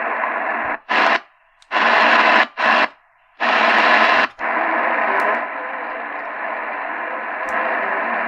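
Realistic DX-380 shortwave radio hissing with band static from its speaker. As the tuning is stepped, the sound cuts out and comes back four times in short bursts, because the set mutes while tuning, then it settles to steady static.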